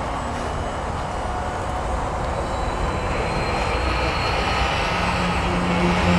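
A motor running steadily, with a low hum coming in near the end.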